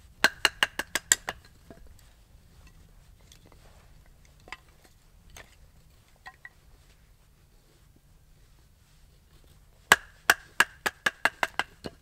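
Knife being batoned into a split of firewood with a wooden stick, the blade ringing at each blow: a quick run of about seven sharp taps at the start and another of about eight near the end, with a few single knocks between.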